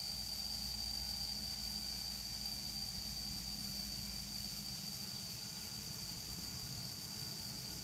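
Steady, unbroken high-pitched insect trill over a constant hiss, with a low rumble that fades out about five seconds in.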